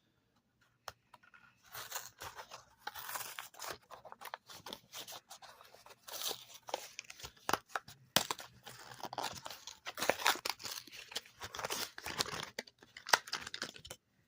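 Hot Wheels blister-card packaging being torn open by hand: the cardboard card and plastic blister ripping and crackling in irregular bursts with sharp clicks, starting about two seconds in.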